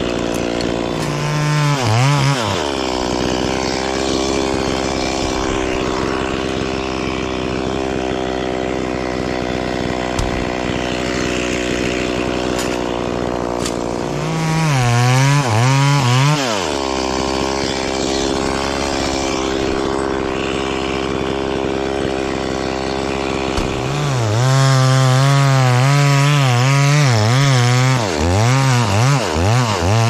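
Two-stroke chainsaw idling steadily, revved up briefly about two seconds in and again around fifteen seconds, then held at high revs for about five seconds near the end, its pitch wavering as it cuts into a coconut palm trunk.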